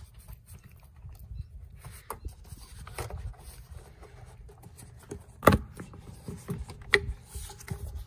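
Hands working a plastic air-intake hose and its clamp loose in an engine bay: rubbing and scraping of plastic and rubber with small clicks, and two sharp plastic knocks about five and a half seconds in and again a second and a half later.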